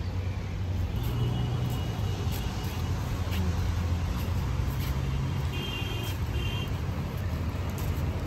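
Road traffic noise: a steady low engine rumble from vehicles on the adjacent street, with a faint high tone twice.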